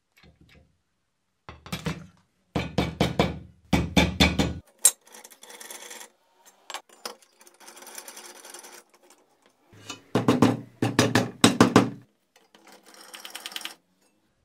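Metal workshop sounds in short cuts: quick clusters of sharp clanks on steel parts, alternating with quieter scraping passages.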